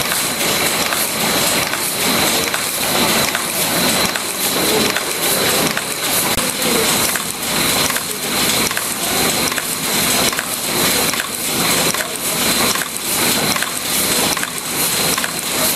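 Automatic screw-making machine running at speed: a fast, steady clatter of repeated metal strokes, with a faint high tone held underneath.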